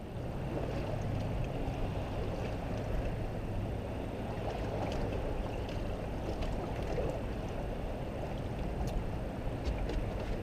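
A steady rush of water and wind around a small boat on open water, with a low hum and a few faint ticks.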